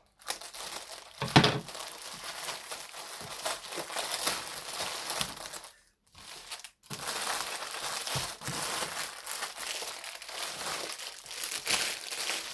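Packaging being crinkled and handled while it is opened, with a sharp click about a second and a half in and a brief pause around the middle.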